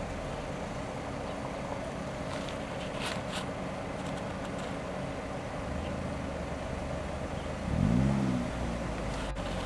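A vehicle engine idling steadily, with a brief rev near the end that rises and then falls in pitch.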